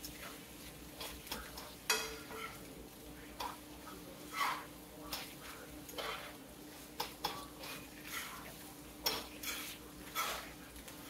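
A cooking utensil scraping and knocking against a frying pan as food is stirred, in irregular strokes about once a second, over a faint sizzle of frying.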